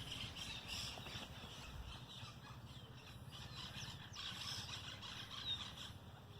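Quiet countryside ambience: birds chirping faintly in short calls over a low steady rumble.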